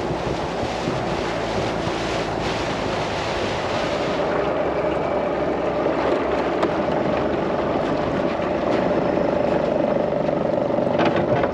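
A steady motor drone, with a steady hum that comes in about four seconds in.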